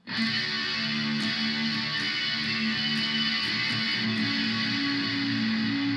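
Electric guitar played through a Korg A5 multi-effects processor set to its chorus effect. Sustained chords and notes ring out, starting abruptly at the opening and changing a few times.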